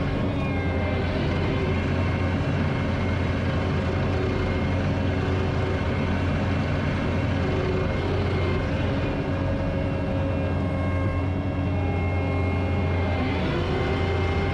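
Diesel engine of a piece of earthmoving equipment running steadily under work, with a rise in pitch near the end.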